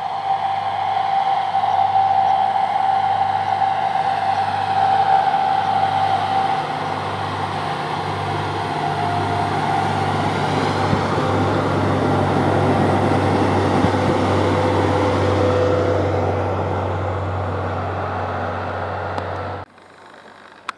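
RM80 ballast cleaning machine running past on the track, its engines droning with a steady whine that slowly falls in pitch as it goes by. The sound cuts off suddenly near the end.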